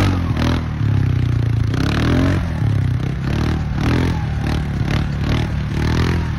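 Polaris quad bike (ATV) engine running under load as the tyres churn through deep snow, its pitch rising and falling in a quick repeating pattern, with scraping and clattering from the wheels and snow.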